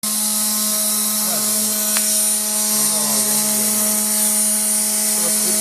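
CNC router with an oscillating knife running: a steady machine hum with a constant high whine over an even hiss, and a single click about two seconds in.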